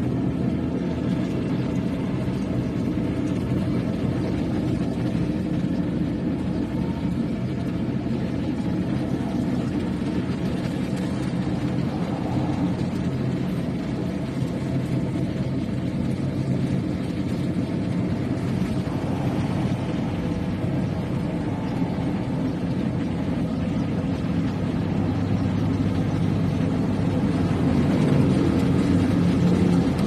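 Rice combine harvester's engine running steadily while it harvests, a constant drone that grows a little louder near the end.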